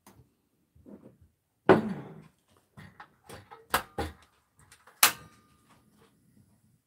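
A metal spoon and ladle clatter loudly, then a portable butane cassette stove's igniter knob clicks three times, catching on the third, after which the burner runs with a faint steady low rush of flame.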